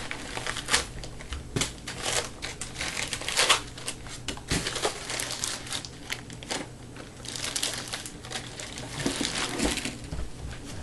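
Laptop packaging being handled and unwrapped: a continual rustle and crinkle of wrapping, with frequent sharp crackles and light knocks, thickening into a denser stretch of crinkling near the end.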